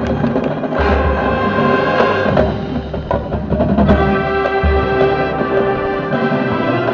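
High school marching band playing: heavy bass drum and timpani hits, then a held brass chord from about four seconds in.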